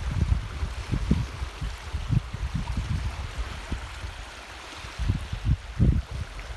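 Wind buffeting the microphone in uneven low gusts, strongest near the end, over a faint steady hiss of moving water.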